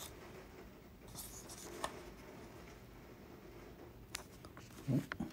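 Faint rustling and a few light clicks of paper lottery tickets being handled, with a short low thump near the end.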